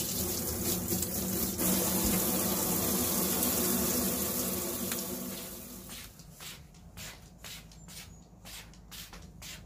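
Water running from a tap into a sink, a steady rush that fades out about five and a half seconds in. Several light knocks follow.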